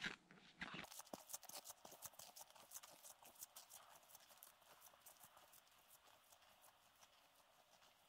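Faint Tubbs snowshoe footsteps crunching and packing deep powder snow in a steady walking rhythm, loudest in the first couple of seconds and fading as the walker moves away.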